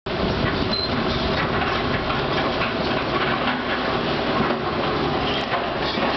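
Diesel engines of demolition excavators running steadily under a constant rattle and clatter.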